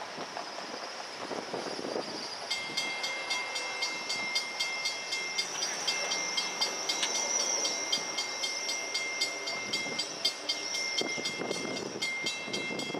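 Railroad grade-crossing warning bell starts ringing about two and a half seconds in, with rapid, even strikes: the crossing has been activated for an approaching train.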